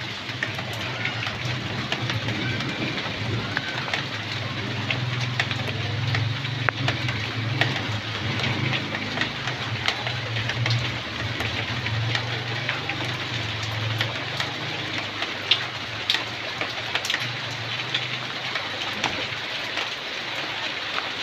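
Torrential rain pouring down: a dense, steady hiss full of sharp drop impacts landing close by. A low steady hum sits underneath and fades out about two-thirds of the way through.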